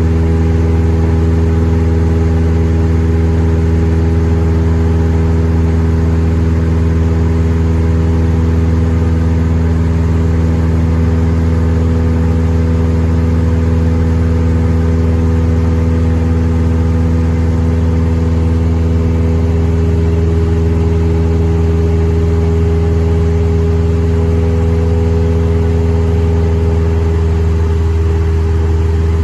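Cessna 172M's four-cylinder piston engine and propeller droning steadily at constant power, a low hum with several overtones that holds an even pitch throughout.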